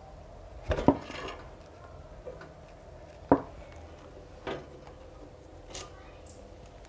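Metal clinking and knocking from a spanner and a just-removed diesel fuel injector being handled, in four separate knocks, the sharpest about three seconds in, over a faint steady hum.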